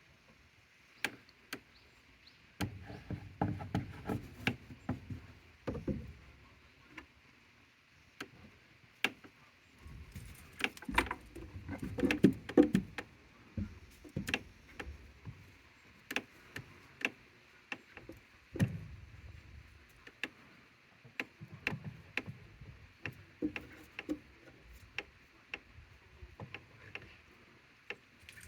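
Goats moving about in a wooden hut: irregular sharp knocks and clicks with bouts of low thudding and shuffling, the loudest about twelve seconds in.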